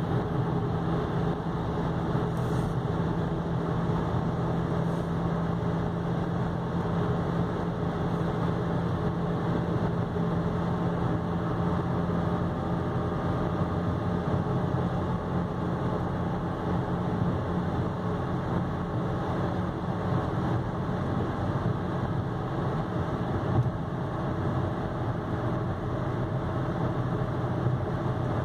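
Diesel car cruising steadily at about 100 km/h, heard from inside the cabin: a constant low engine hum at around 2000 rpm mixed with even road and wind noise.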